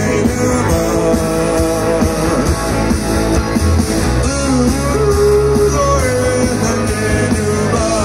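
Live rock band playing loudly through a PA: electric guitars over bass and drums, with a melody line bending between notes.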